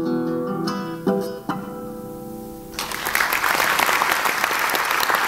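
Closing notes of a tango on acoustic guitar and cello, with a final chord fading out. The audience then breaks into applause about three seconds in.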